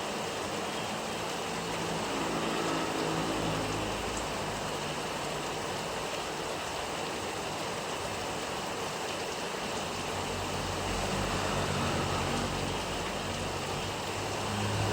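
Steady rain falling, an even hiss. A motor vehicle's engine hums past about two seconds in, and another vehicle passes from about ten seconds in to the end.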